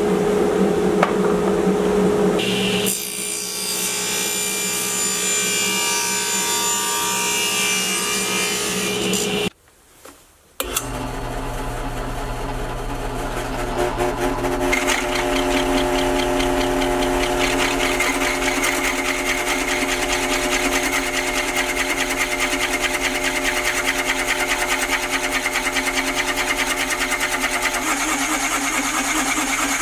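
Table saw running and cutting plywood on a crosscut sled. After a brief gap, a drill press turns an adjustable circle cutter through plywood: a steady motor hum with fast, even chatter from the cutter.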